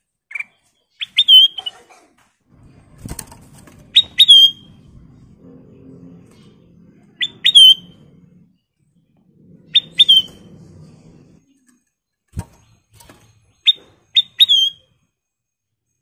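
Ruby-throated bulbul (kutilang emas) calling: five groups of two or three short, sharp notes that flick up high and drop, roughly every three seconds. Between the calls come soft rustling and fluttering and a couple of knocks as the bird moves about its cage.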